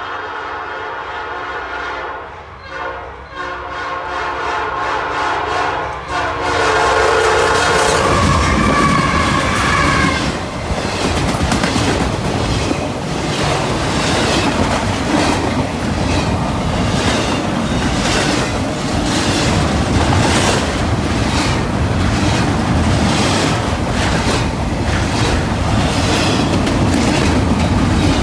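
A Norfolk Southern locomotive's multi-chime air horn is played in a run of short and long blasts, growing louder and ending about ten seconds in as the locomotive comes by. After that, the rumble and steady rhythmic wheel clicks of the freight cars rolling past fill the rest.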